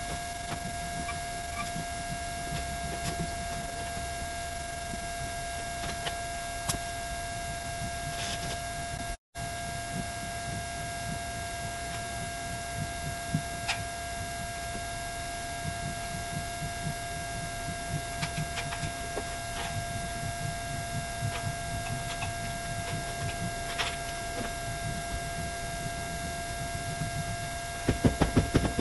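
A steady electrical whine and hum over a constant hiss, with faint scattered taps and low rumbles; near the end comes a quick run of louder low thumps.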